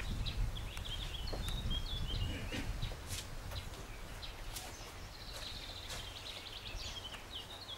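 Small birds chirping in short, quick calls, with a rapid twittering run about five seconds in. Under them a low rumble fades after the first few seconds, and there are a few faint footsteps.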